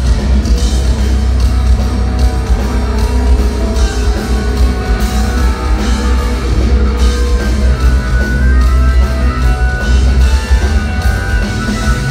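Live heavy rock played loud by a band: a bass-heavy mix of double-neck electric bass, electric guitar and drum kit.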